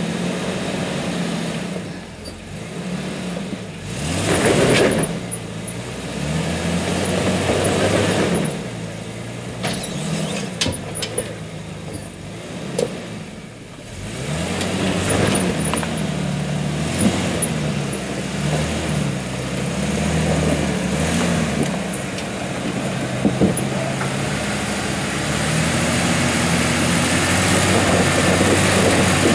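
Lifted Isuzu Trooper's engine revving up and down in short bursts as it crawls over rock ledges, with a few sharp knocks along the way. The engine grows louder near the end.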